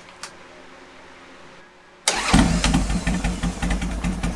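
A 2003 Harley-Davidson Sportster's air-cooled V-twin fires up suddenly about two seconds in, after a quiet stretch with a few faint clicks, and runs loud and ragged. This is the first start after a top-end rebuild with new pistons and cylinders, done to cure piston slap, and the engine is running without its muffler.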